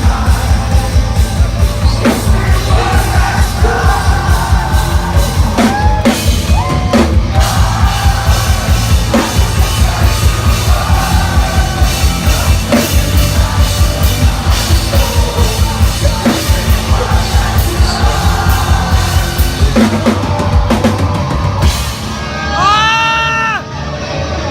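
Live metalcore band playing loud, with distorted guitars and a fast, steady kick-drum beat under shouted vocals. Near the end the drums drop out and a tone bends up and back down.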